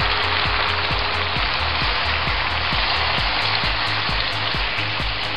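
Vegetables in soy and chili sauce sizzling steadily in a hot skillet as cornstarch is stirred in with a wooden spatula.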